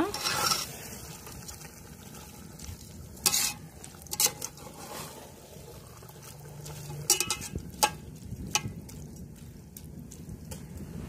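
Metal slotted spoon stirring thick, wet chicken masala in a large metal pot, with a handful of sharp scrapes and knocks against the pot. A low sizzle from the cooking pot runs underneath.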